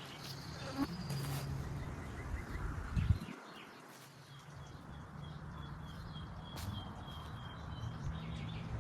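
Small birds chirping, with an even run of rapid high chirps in the second half, over a low steady hum. There is a dull thump about three seconds in.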